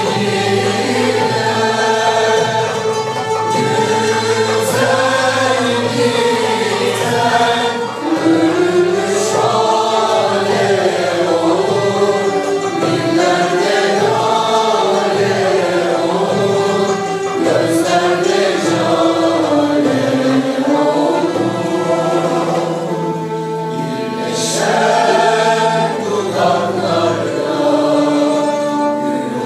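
Mixed choir singing a Turkish classical music (Türk sanat müziği) piece, accompanied by a traditional ensemble of kanun, ouds, violin, cello and frame drum.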